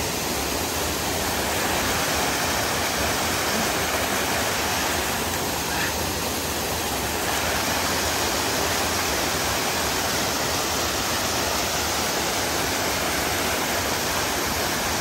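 Steady rushing of running water, an even noise that holds at one level throughout.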